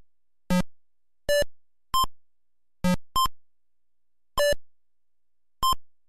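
Electronic background music of sparse, short pitched beeps: about seven notes at uneven spacing, each dying away quickly, with silence between.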